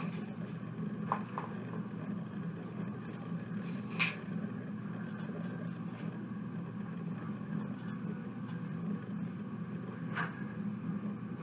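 A steady low hum with a few light, sharp clicks, the clearest about a second in, about four seconds in and near the end: small plastic toy pieces and rocks being handled while a sensory bin is set up.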